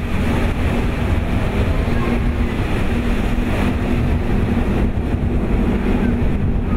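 Steady propeller drone from a six-ship formation of radial-engine T-6 Texan-type trainers flying overhead, with low wind rumble on the microphone.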